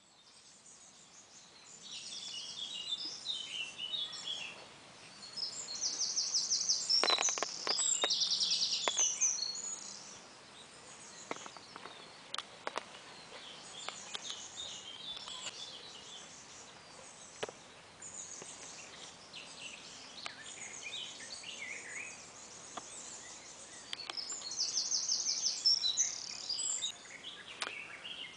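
Several songbirds singing outdoors, with busy chirps and a few bursts of rapid trills, plus a few sharp clicks about seven to thirteen seconds in. The sound fades in over the first two seconds.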